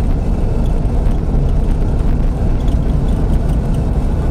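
Car driving over a wet cobblestone street, heard from inside the cabin: a steady low rumble of engine and tyres.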